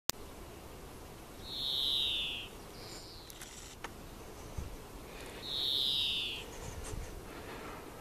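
Long-eared owl giving two drawn-out, high, hissing calls, each about a second long and falling slightly in pitch, about four seconds apart.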